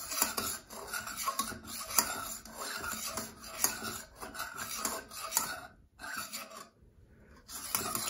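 Metal spoon stirring and scraping around a stainless steel bowl of hot water, dissolving salt, with small clinks against the metal. The scraping stops briefly about six seconds in and starts again near the end.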